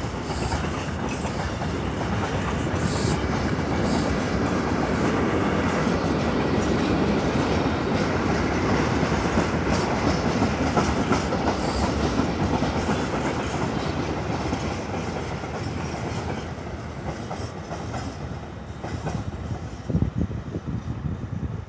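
Freight train of Eas open high-sided wagons rolling past, wheels clattering over rail joints. The rumble swells, then fades as the train thins out, leaving a few separate wheel clacks near the end.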